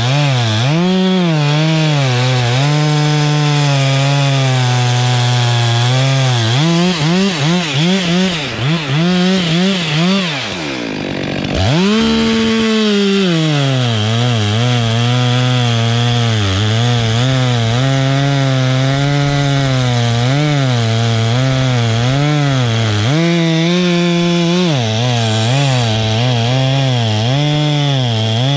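Stihl two-stroke chainsaw running at high revs, its engine speed rising and falling as it cuts wood. About seven to ten seconds in the throttle is blipped on and off several times; the engine drops briefly toward idle and then revs back up.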